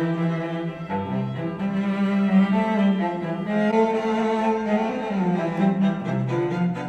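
Classical string music with a prominent cello line, played back through a pair of studio monitors and recorded by a microphone in the room. Playback switches from PreSonus Eris E8 XT monitors to Tannoy Gold 8 monitors partway through.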